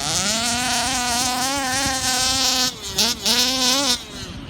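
Small two-stroke petrol engine of an HPI Baja 5B RC car, just rebuilt, running at a steady high buzz. About three seconds in it is blipped twice before dropping back to a much quieter idle.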